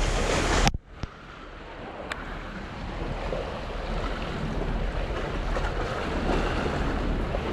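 Wind buffeting the microphone over waves washing at the waterside. The noise cuts off abruptly just under a second in, then slowly builds back up.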